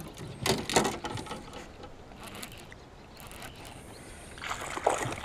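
Baitcasting fishing reel being handled and cranked: two short bursts of clicking and gear rattle, one about half a second in and one near the end.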